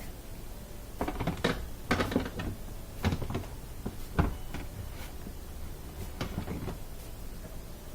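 Plastic dishwasher parts being handled and fitted back into place: a series of irregular clicks and knocks, the strongest about four seconds in.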